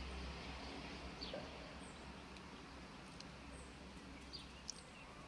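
Small birds giving short, high chirps several times over a faint outdoor background with a low rumble.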